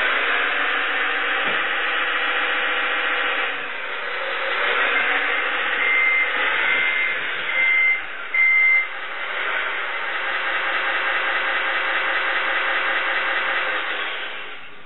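RC sound module in a 1:6 scale tracked chassis playing a simulated truck diesel engine through its speaker, the engine note rising and falling as the model drives. About six seconds in, four high reversing beeps sound as it backs up. The engine sound dies away near the end.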